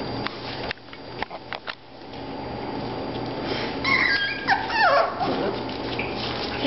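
Five-week-old miniature Australian shepherd puppies whimpering and yipping, with a cluster of high, falling whines a few seconds in. A few sharp knocks come about a second in.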